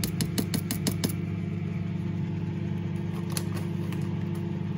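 A steady low mechanical hum throughout, with a quick run of light taps in the first second as a tablespoon knocks cornflour into the slow-cooker liner, and a couple more taps about three and a half seconds in.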